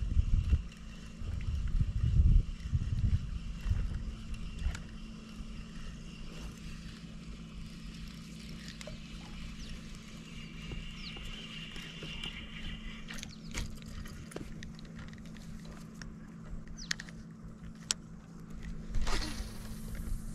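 Bow-mounted electric trolling motor humming steadily as it moves the bass boat slowly along. Heavy low rumbles in the first few seconds, and scattered clicks and a short rustle near the end.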